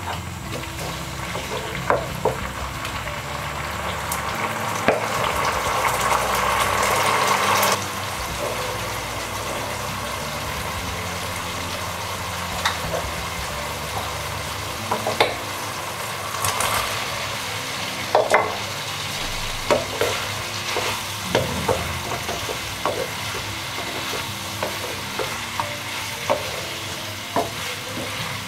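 Manchurian sauce with onions and capsicum sizzling and bubbling in a pan while a wooden spatula stirs it, with scattered knocks of the spatula against the pan. The sizzle swells for a few seconds and drops off suddenly about eight seconds in.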